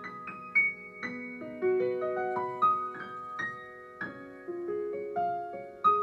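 Improvised solo piano music: notes struck one after another in rising, broken-chord runs, each left ringing on.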